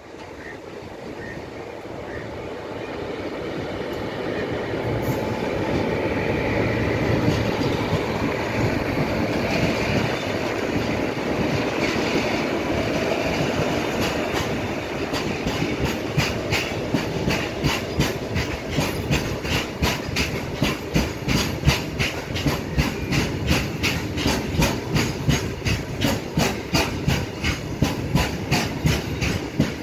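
An Indian Railways electric locomotive approaches and passes, its noise growing louder over the first several seconds. A long freight train of loaded open wagons then rolls past with a steady, regular clickety-clack of wheels over the rail joints.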